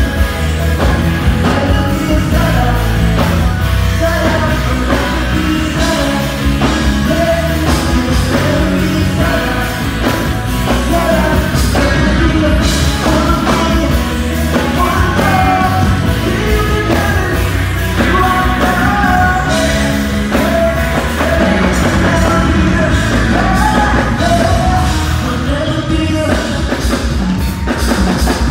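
Live band music with a singer on a handheld microphone over a heavy, steady bass.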